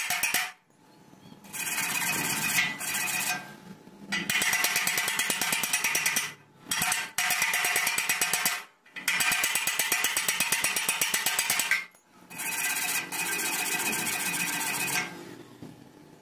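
Hand wire brush scrubbed rapidly back and forth over a stick-welded bead on steel square tube, scraping off the slag. The scratching comes in about six spells of one to three seconds with short pauses between, and stops near the end.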